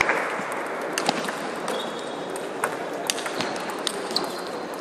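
Table tennis balls clicking: scattered, irregular sharp ticks of balls striking bats, tables and the floor, over a steady background hum of the hall.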